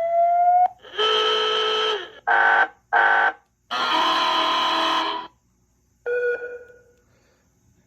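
Electronic alarm sound effects played through a small 3-watt speaker, skipping quickly from one to the next. A rising tone cuts off, then comes a buzzing alarm blast about a second long, two short blasts, a longer blast of about a second and a half, and a short tone that fades away.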